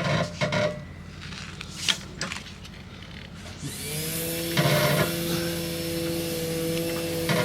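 A few metal clanks, then about three and a half seconds in an electric lift motor spins up and runs steadily with a hum and hiss as it raises the car.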